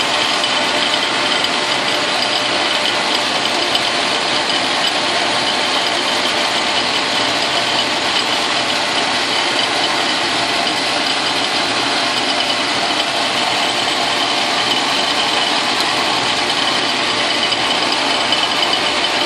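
Logan metal lathe running steadily under power feed, its spindle turning an end mill in the collet as it mills a tool-post nut block: a continuous machine hum with gear and belt noise and the cutter working the metal.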